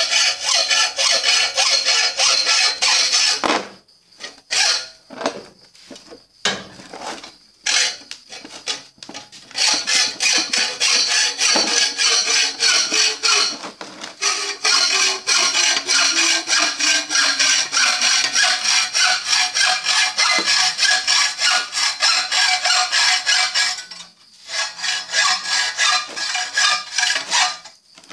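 Hand hacksaw cutting through a rusty steel pipe held in a vise: a loud, repeated scratchy rasp of back-and-forth strokes, with stretches of steady sawing broken by short pauses and choppier strokes.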